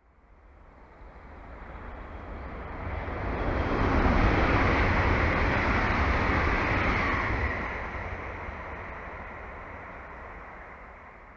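České dráhy InterPanter electric multiple unit passing, its wheels running on the rails. The sound swells over the first four seconds, stays loud for a few seconds, then fades as the train pulls away.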